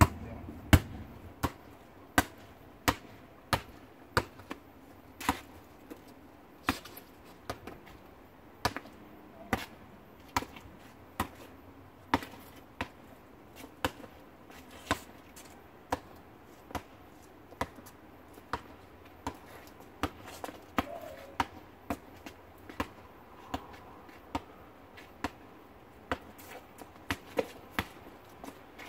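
Basketball dribbled on an asphalt driveway: a steady run of sharp bounces, about three every two seconds, with small changes of pace as the dribbler moves.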